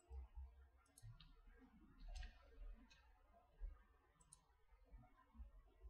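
Near silence with about half a dozen faint, separate computer mouse clicks as a file and folder are created in a code editor.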